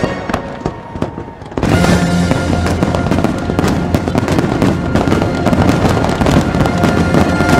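Fireworks popping and crackling over loud show music. A few scattered pops come in a short lull, then about one and a half seconds in the music swells into held notes with a dense run of crackling bursts.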